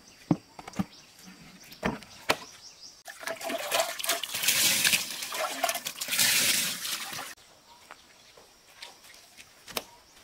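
A few sharp knocks, then water poured onto a fish lying on a wooden board, splashing for about four seconds before it stops abruptly.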